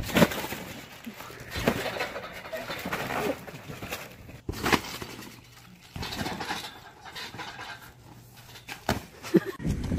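Irregular thumps of two people jumping and landing on a trampoline mat as they scuffle, a few sharp knocks standing out among the rustle of movement.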